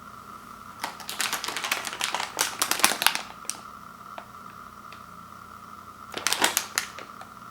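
Crinkling and crackling of a plastic cookie package being handled, in a dense flurry lasting about two seconds starting about a second in, and a shorter one near the end.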